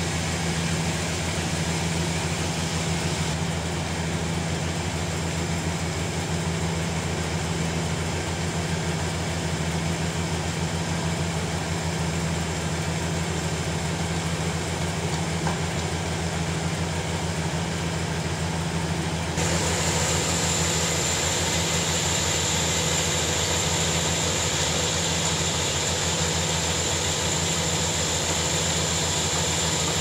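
Sawmill machinery running steadily with a low hum. About two-thirds of the way through it gets a little louder and a higher hiss comes in.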